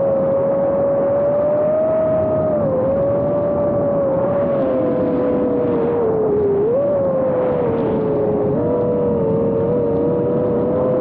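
Brushless motors and propellers of an iFlight Nazgul Evoque F5 FPV quadcopter whining in flight, picked up by the onboard Caddx Peanut camera's microphone. It is a steady buzzing pitch over a rush of wind. The pitch sags and jumps back up several times as the throttle changes.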